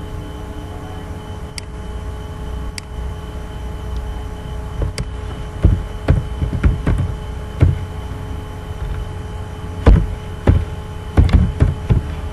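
Computer keyboard keystrokes: a string of sharp, irregular clicks from about halfway in as a filename is typed, over a steady low hum. A few fainter clicks come earlier.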